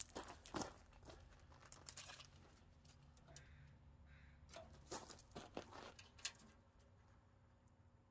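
Near silence with a few faint clicks and scuffs from a tape measure being worked along a rusty steel wheelbarrow tub.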